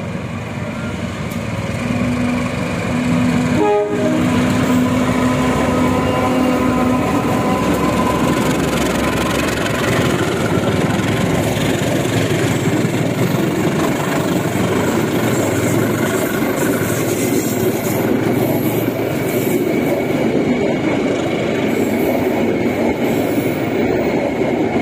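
CC201 diesel-electric locomotive sounding one long horn blast from about a second in until about seven seconds, as it comes past. A passenger train then passes close by in a steady loud rumble of engine and wheels on the rails.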